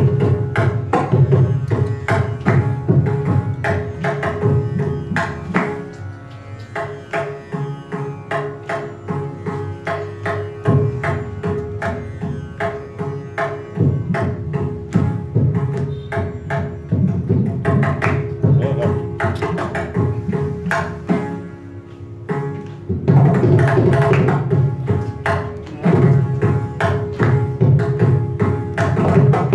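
Mridangam and ghatam playing a Carnatic percussion solo (thani avartanam): fast rhythmic drum strokes over a steady drone. The playing grows louder and denser about three-quarters of the way through.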